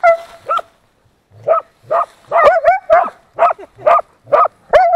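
Hunting laika barking repeatedly into a badger's burrow, baying the badger holed up inside. A couple of barks, a short pause, then rapid barking, about two to three a second.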